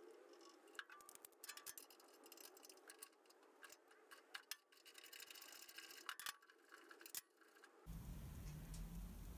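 Faint, scattered metallic clicks and taps of a spanner being worked on a motorcycle engine mount bolt, against near silence. A low steady rumble comes in near the end.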